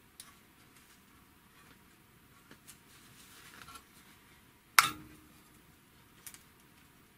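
Small metallic clicks and handling noises from adjusting an overlock sewing machine's thread-tension regulators, with one sharp click about five seconds in that rings briefly.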